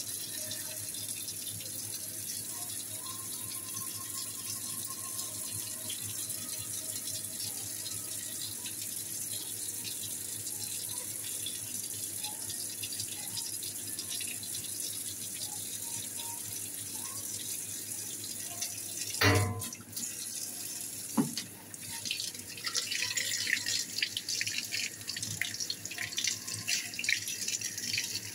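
Kitchen tap running steadily into a stainless steel sink as sauce-dispenser parts, a metal spring among them, are rinsed under the stream. A sharp knock about two-thirds of the way through, the loudest sound, and a smaller one two seconds later; after that the water splashes unevenly as gloved hands work in the stream.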